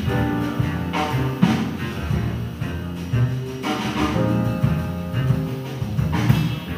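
Small jazz-soul band playing live: a horn section of saxophones, trombone and bass clarinet holding notes over piano, bass and drums.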